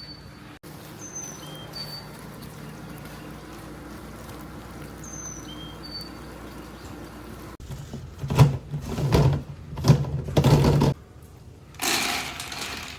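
A short, high three-note chirping phrase, sung twice over a faint steady low hum, typical of a songbird. From about eight seconds in come several loud knocks and rustles of handling, then a brief hiss about a second long.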